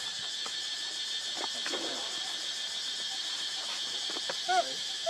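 Steady high-pitched buzz of an insect chorus, with two short squeaky calls from a macaque near the end, the second falling in pitch.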